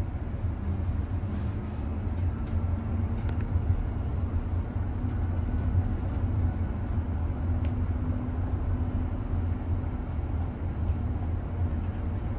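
Bus running along the road, heard from inside the cabin: a steady low rumble of road and drive noise with a faint hum and a couple of light clicks.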